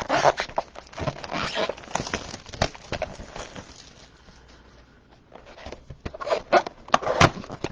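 Plastic wrapping on a trading-card mega box crinkling and tearing as the box is opened, in bursts of crackle with a quieter lull in the middle.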